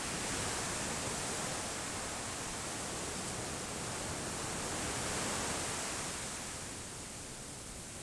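Ocean surf breaking out of sight, a steady rushing wash that swells and eases slowly, swelling about five seconds in and easing toward the end.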